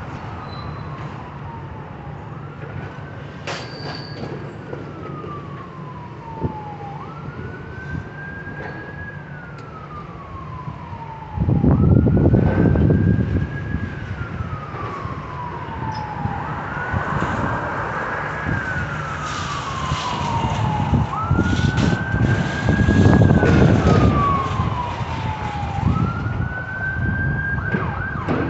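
Emergency vehicle siren wailing, each cycle rising quickly then falling slowly, about every five seconds. A loud low rumble comes in about a third of the way through, and near the end the siren switches to a faster yelp.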